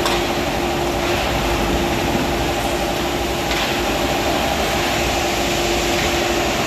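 Steel rolling mill running as red-hot bars pass through the rolls and along the roller conveyor. The machinery makes a loud, steady noise with a constant hum underneath.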